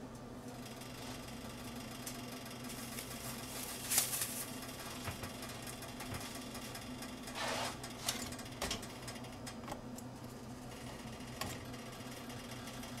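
A steady low hum runs under light kitchen handling: a sharp knock about four seconds in, a short rustle about seven and a half seconds in, and a few lighter clicks soon after.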